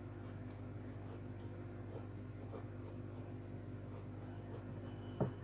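Graphite pencil scratching on drawing paper in quick, short, irregular strokes as small figures are sketched, over a steady low hum. A brief louder thump comes near the end.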